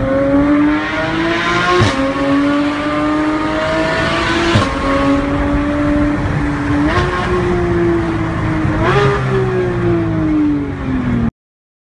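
Porsche 991 GT3's naturally aspirated flat-six through an Fi valved catback exhaust, heard from inside the cabin. The engine is high-pitched and climbs under acceleration, dropping sharply in pitch at two upshifts. It then jumps up at two downshift blips and winds down as the car slows, and the sound cuts off suddenly near the end.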